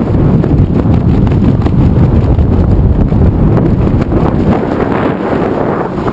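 Wind buffeting the microphone of a camera worn during a tandem parachute descent under canopy: a loud, steady, low rumbling rush with rapid irregular flutter.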